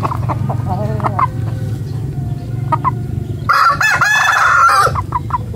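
Gamecock roosters clucking a few times, then one long crow about three and a half seconds in.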